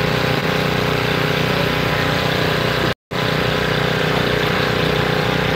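An engine idling steadily, an even, unchanging hum. The sound drops out for an instant about three seconds in.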